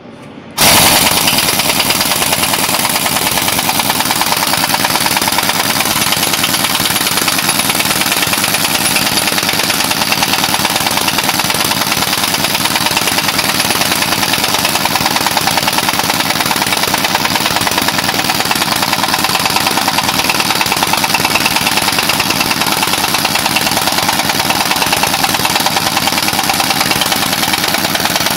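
A machine running steadily with a fast, even rattling pulse, starting abruptly about half a second in.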